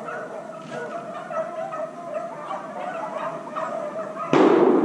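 A pack of beagles baying together in a steady chorus while running a rabbit. A sudden loud bang cuts in near the end.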